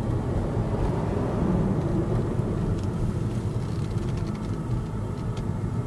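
Steady low rumble of a car driving, heard from inside its cabin: engine and road noise.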